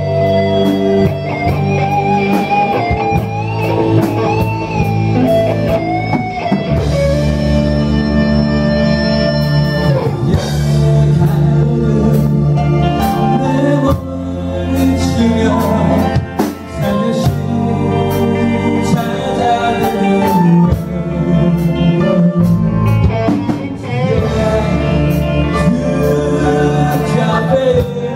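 Live rock band playing: an electric guitar lead line with bent notes over drums and bass guitar in the first few seconds, then a man singing with the band.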